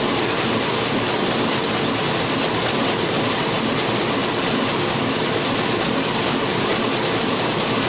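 Heidelberg offset printing press running steadily, a dense, even mechanical clatter.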